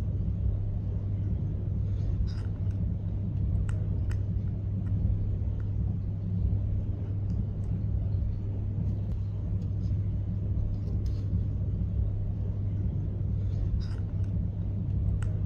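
Steady low background hum and rumble, with a few faint light clicks of small metal parts being handled.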